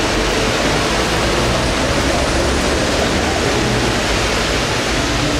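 Heavy rain pouring onto a city street, a dense steady hiss, mixed with traffic driving over the wet road.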